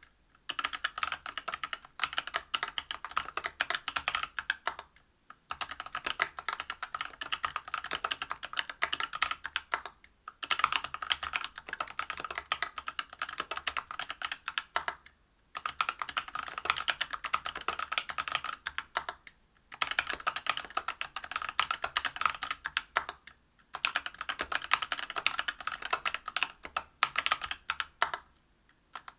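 Typing on a Whale 75 mechanical keyboard with stock, unlubed Everglide BeesWax 67g linear switches in a brass plate under PBT keycaps. The keystrokes come as rapid runs of clacks, broken by short pauses about every four to five seconds.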